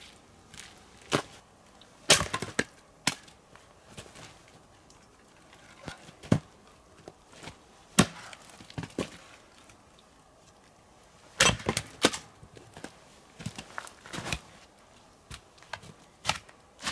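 Firewood crackling and snapping in a wood stove: irregular sharp cracks, the loudest about two seconds in, around eight seconds and twice around eleven and a half to twelve seconds in.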